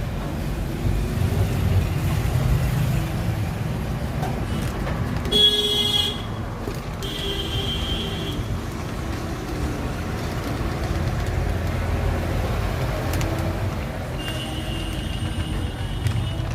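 Road traffic running with a steady low rumble, and vehicle horns honking: a short toot about five seconds in, another a little later, and a longer honk near the end.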